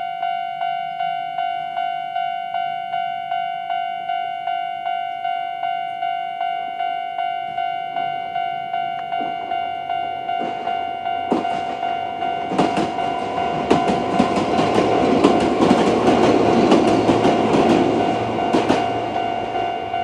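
Level-crossing warning bell of the old standard electronic type, ringing in a fast, even beat of about two and a half strikes a second. From about ten seconds in, a Chichibu Railway 7500 series electric train passes over the crossing, its wheels clacking over the rail joints, loudest in the last few seconds.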